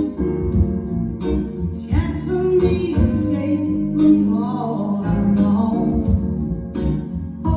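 A song with singing and guitar played loud through a home speaker box with a Taramps T-600 10-inch subwoofer and FH-300S 6-inch speakers, with heavy bass under a steady beat.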